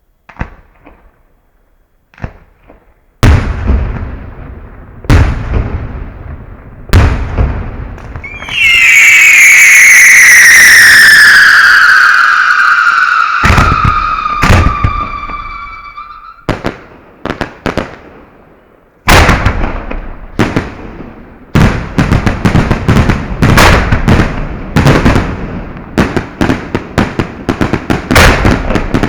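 Aerial fireworks heard from close to the launch site: shells firing and bursting with loud, sharp bangs. About eight seconds in, a loud whistling firework sounds for about eight seconds, its pitch falling steadily. From about nineteen seconds on comes a rapid volley of bangs.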